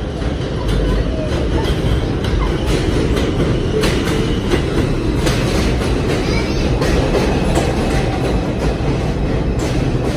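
R142 subway train pulling into an elevated station and running alongside the platform: a steady, loud rumble of the cars with the irregular clack of wheels over rail joints.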